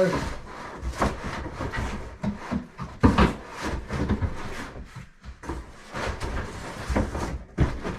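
Packaging rustling with irregular knocks and scrapes as a carbon gravel wheel is handled and unpacked from its box; the sharpest knock comes about three seconds in.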